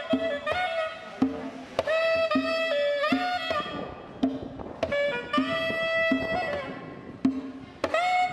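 A cane wind instrument with finger holes plays a reedy melody in short phrases and held notes, over regular percussion strokes.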